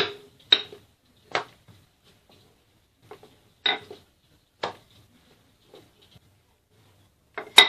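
Dough being rolled out with a wooden rolling pin on a marble worktop: about six sharp, irregularly spaced knocks as the pin and the dough hit the stone, the loudest near the end.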